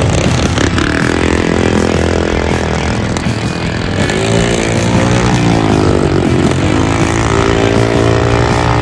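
Racing lawn tractors' small engines running hard as they pass, the pitch rising and falling several times as they rev and ease off through the turn.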